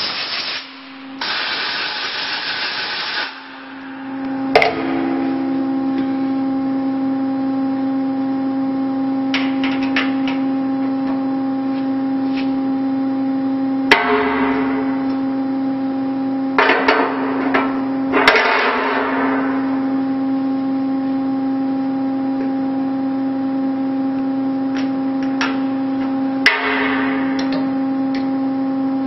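Compressed-air blow gun blasting chips off a milling-machine table in two long hissing bursts at the start, then a few shorter blasts later on. Under it the mill hums steadily, with several sharp metal clicks as parts and tools are handled.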